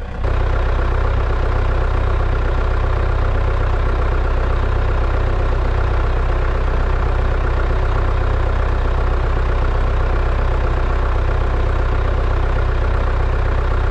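A tractor engine running steadily at a constant speed, loud and unchanging, cutting in abruptly at the start.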